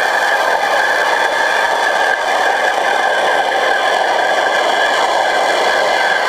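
Pressure-washer jets spraying underwater, heard through the water as a steady, loud hiss with a constant whine running through it.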